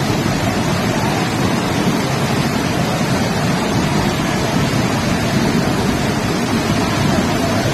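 Rushing floodwater, a loud, steady noise that never lets up.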